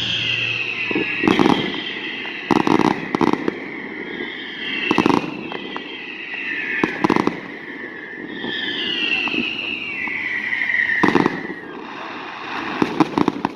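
Aerial fireworks going off: a dozen or so sharp bangs at irregular intervals, some in quick clusters near the end. Three long, high whistling tones, each sliding down in pitch, sound between the bangs.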